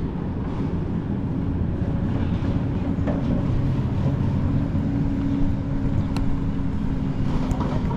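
Steady low outdoor rumble, with a faint steady hum running through the middle of it.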